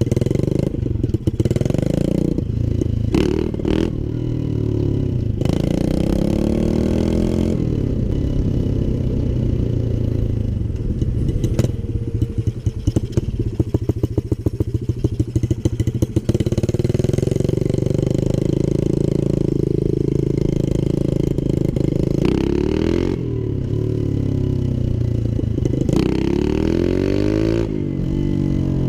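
Pit bike's Lifan 125cc single-cylinder four-stroke engine running on the move, its pitch climbing and dropping again and again as the throttle is opened and closed, with a choppier, uneven stretch about halfway through.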